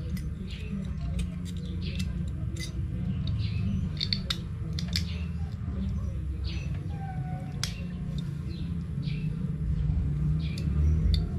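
Scattered light clicks and knocks of a scooter's front brake caliper being handled and fitted back onto the fork, over a steady low rumble.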